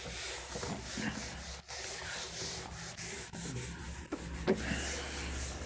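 Quiet, irregular scratchy rubbing sounds over a low steady hum.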